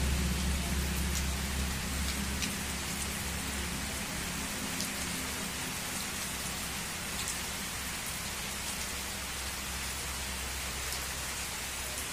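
Steady heavy rain falling on a wet road and trees, with scattered drops ticking close by. A low hum fades out over the first few seconds.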